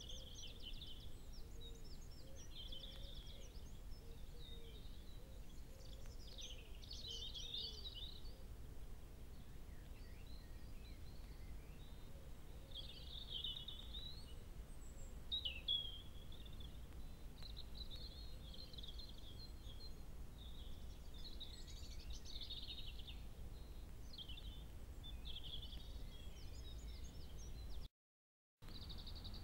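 Several songbirds singing and calling, a busy mix of short chirps, trills and quick rising and falling notes, over a steady low rumble. The sound cuts out for under a second near the end.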